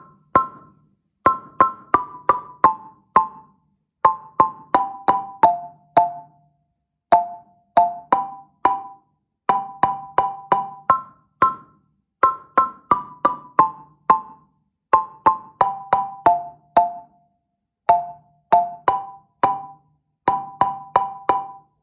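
African alto marimba, its wooden bars struck two at a time with rubber-headed mallets. It plays short, quickly fading double notes a third apart in rhythmic groups that step down the scale, from C and E through B and D, A and C, and G and B to F and A. The pattern starts over from the top about halfway through.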